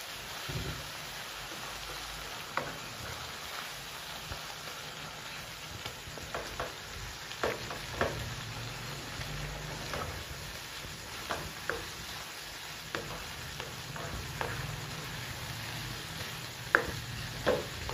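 Chicken and tomato masala sizzling in a nonstick wok while it is stirred with a slotted spatula. Short scrapes and taps of the spatula against the pan come at uneven intervals over the steady sizzle.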